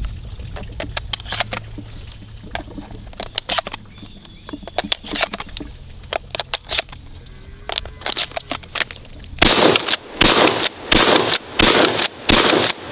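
Shells being thumbed one after another into the magazine tube of a Benelli SuperNova pump-action shotgun, a string of short metallic clicks. About nine and a half seconds in, the shotgun starts firing in quick succession, roughly two loud blasts a second as it is pumped between shots.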